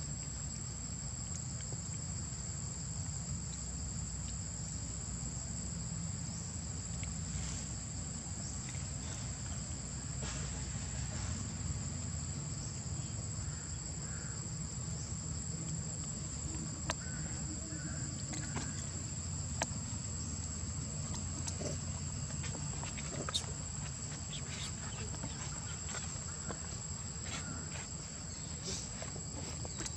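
Steady high-pitched insect drone over a low background rumble, with a few faint sharp clicks in the second half.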